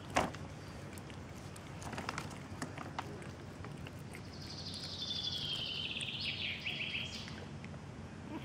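A bird sings a rapid, high trill lasting about three seconds, starting about four seconds in. There is a sharp click just at the start, and a few faint clicks a couple of seconds in.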